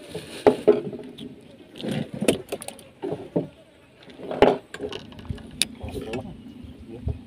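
Irregular knocks, clatters and rustling from handling gear and moving about on a small wooden fishing boat.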